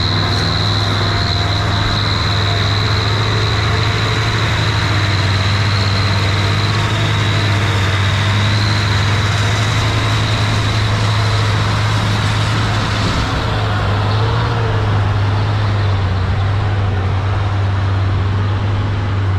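Diesel engines running steadily under load: a tractor pulling a sugarcane trailer, then a truck laden with sugarcane, crossing a harvested cane field. A thin, steady high whine sounds through the first half and fades out.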